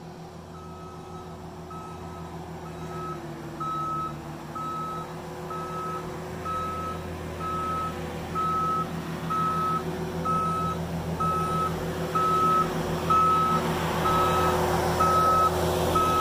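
New Holland skid steer backing up: its reverse alarm beeps steadily about once a second over the running diesel engine. The engine grows louder toward the end.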